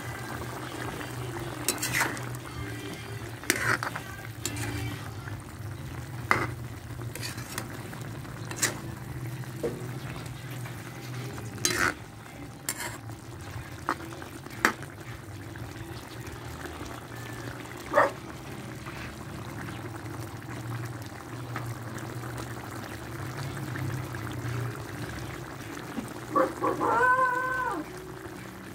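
Chicken curry with potatoes bubbling at a simmer in an open pan, with scattered sharp pops through the steady bubbling. Near the end a rooster crows once.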